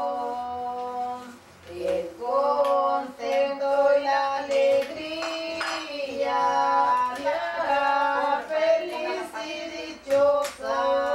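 Women singing a slow song in Spanish, long held notes with short breaths between phrases.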